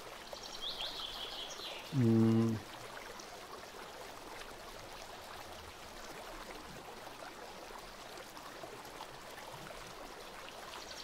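Steady background hiss of a narration microphone, with one short voiced sound from a man about two seconds in and a few faint high chirps near the start.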